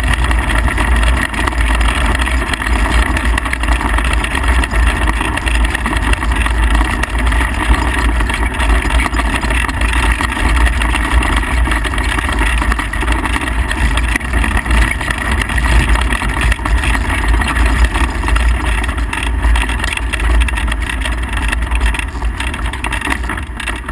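Midget race car engine running hard on the dirt track, heard from the onboard camera in the cockpit. It holds a steady, loud drone and eases off near the end.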